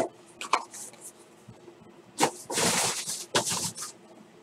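Hands handling cardboard trading-card boxes: a sharp tap at the start, then several short scrapes and rustles. A longer, louder rustling scrape comes about two and a half seconds in.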